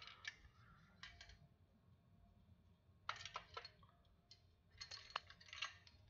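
Faint clicks and light rattling from a red fire alarm device being turned over and fiddled with in the hands, in three short clusters.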